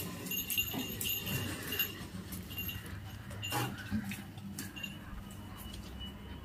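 Labrador dog moving about and sniffing along shelves as it searches by scent, with faint scattered clicks and short high squeaks.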